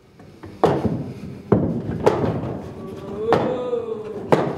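Fists banging on a table, about five loud, irregularly spaced thumps that ring on in a reverberant room. In the second half a voice holds one long note under the banging.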